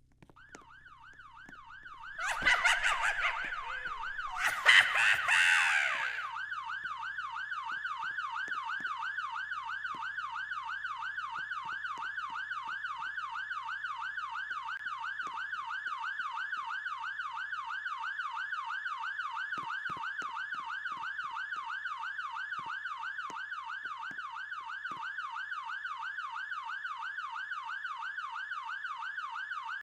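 A steady electronic warbling tone, like a siren or alarm, sweeping up and down a few times a second. Two loud noisy bursts, like rustling or handling, fall in the first few seconds.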